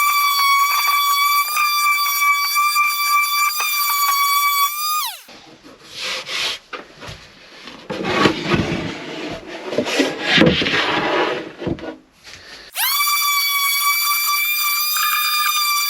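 A high-pitched electric power tool running steadily for about five seconds and winding down, then several seconds of irregular rubbing and scraping on wood, then the tool running again for about three seconds and winding down near the end.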